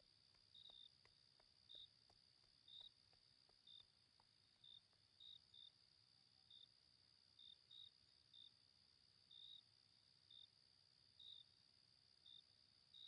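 Faint crickets at dusk: a steady high-pitched trill with short separate chirps over it, at an uneven pace of about one or two a second.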